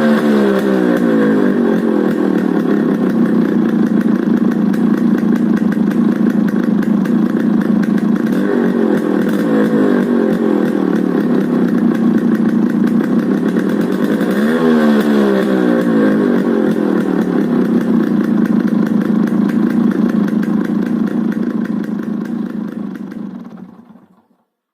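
Yamaha RX135's single-cylinder two-stroke engine breathing through an RX100 six-hole silencer: revs falling back to a steady idle, a light blip, then one quick rev up and back down about halfway through before it settles to idle again. The sound fades out near the end.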